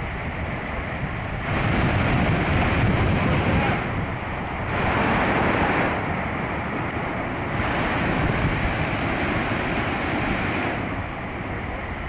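Heavy storm surf breaking and washing up over the shore, mixed with wind buffeting the microphone; the rush swells louder three times.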